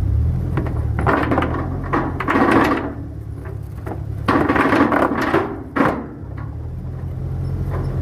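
Steady low hum of a ship's engine or generator, with irregular clattering and knocking from work on deck in two stretches and a single sharp knock just before the end.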